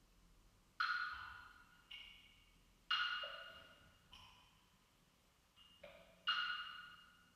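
A stick striking a resonant percussion object on a tabletop: about seven single, irregularly spaced strokes, three of them louder, each ringing briefly with a bright, slightly pitched tone.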